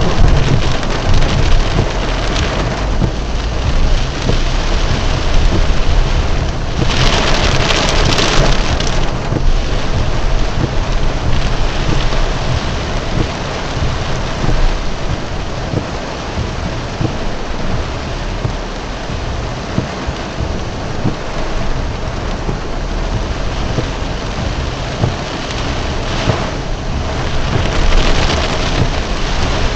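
Heavy rain pounding on a car's roof and windshield, heard from inside the cabin as a steady loud noise with a deep rumble beneath it. It swells to a louder surge about seven seconds in for a couple of seconds, and again briefly near the end.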